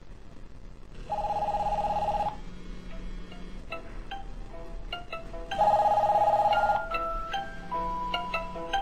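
Several mobile phones ringing at once: a repeating two-tone trilling ring overlapped by a melodic ringtone of short notes.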